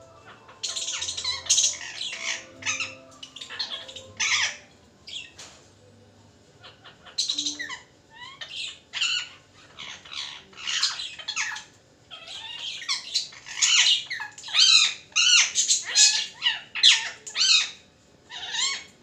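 Rose-ringed parakeet squawking angrily: rapid runs of harsh, shrill squawks in clusters, broken by a couple of short pauses.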